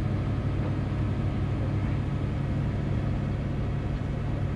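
Classic car's engine running steadily, a low, even drone heard from inside the car.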